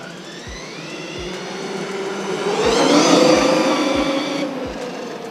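Surpass Hobby 4076 2200 kV brushless motor of a 1/8-scale RC monster truck whining under hard throttle, running off a 3S battery. The whine climbs in pitch over the first two seconds, is loudest about three seconds in, then drops in pitch near the end.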